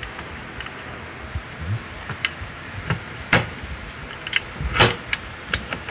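Quick-release steering wheel being fitted back onto its hub adapter on the steering column: a few sharp metal clicks and knocks, the loudest two about a second and a half apart in the second half.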